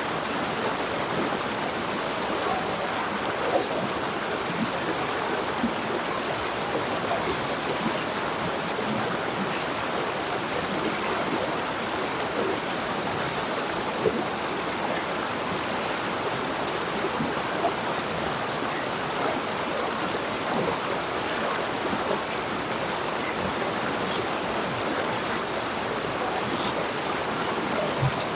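Jungle river flowing over rocks: a steady rushing and babbling of water with small splashes scattered through it.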